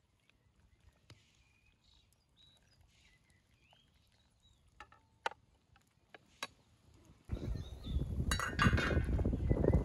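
A metal skimmer clinking a few times against a cast-iron cauldron as a boiled chicken is lifted out of the broth, with faint bird chirps. About seven seconds in, a loud rushing noise cuts in suddenly.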